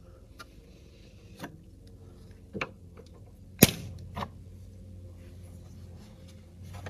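Flush cutters snipping the plastic ties that hold a 3D printer's toolhead in place: a handful of short, sharp snaps, the loudest about three and a half seconds in.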